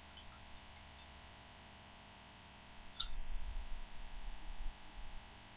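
Quiet room tone, then about three seconds in a click followed by two seconds of low, irregular bumps and rumble, as of handling things on the surface near the microphone.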